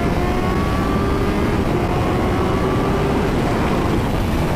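Motorcycle engine pulling hard through a roll-on acceleration, its pitch rising slowly, under heavy wind noise.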